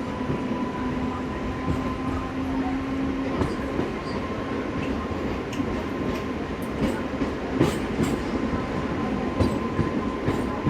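Passenger train running on the rails: a steady rumble with scattered wheel clicks over the rail joints and a faint steady whine.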